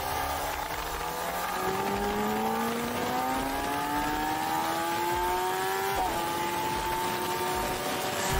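Kawasaki sportbike engine accelerating, its pitch climbing steadily through the gear with a brief dip at a gear change about six seconds in, over a steady rush of wind.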